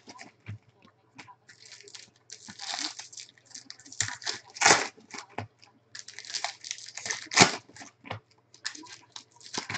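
Foil wrappers of trading-card packs crinkling and tearing as they are opened by hand, in irregular bursts, with cards flicked through between them. The loudest crinkles come about halfway through and again a little later.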